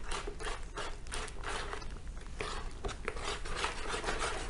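Repeated scraping and rubbing strokes as soap paste is stirred around a plastic container with hot water, working the lumps of soap so they dissolve.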